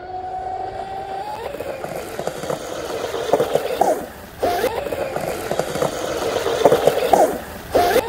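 RC hydroplane's Oxidean Marine 4082 2200KV brushless motor running at full throttle with a high whine over the hull's spray hiss, cutting out abruptly for about half a second about four seconds in and again near the end. These are power cuts at full trigger, which the owner suspects may come from the battery.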